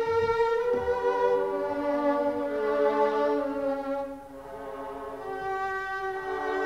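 Chamber string orchestra playing the slow Adagio movement of a Classical-era symphony, in a live recording: held violin lines over lower strings, dropping quieter about four seconds in and building again toward the end.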